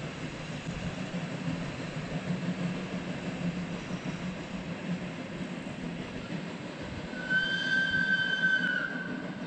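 Ukko-Pekka, a Finnish Hr1 steam locomotive, pulling its train of carriages away, with a steady low rumble. Near the end a high-pitched squeal lasts about a second and a half.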